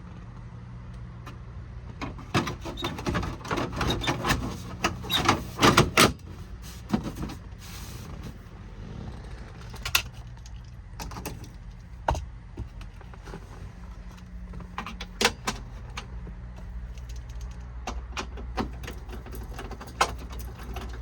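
Plastic dashboard cover being pushed and snapped back into place, a run of clicks, knocks and rattles, busiest a few seconds in, then single knocks now and then. A steady low hum runs underneath.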